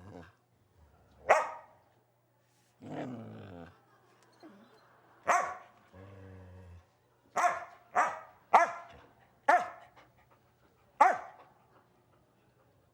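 Dog barking: about seven sharp single barks, three of them in quick succession near the middle, with two lower, longer growl-like sounds between the early barks.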